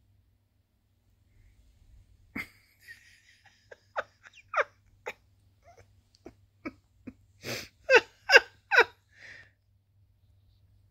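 Tabby cat grooming itself right at the microphone: a string of short, wet licking smacks, irregular at first, with three loud ones in quick succession near the end.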